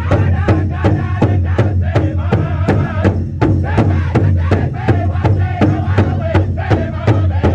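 A powwow drum group sings with raised voices over a large powwow hand drum struck in unison by several drumsticks, a steady fast beat of about three to four strokes a second.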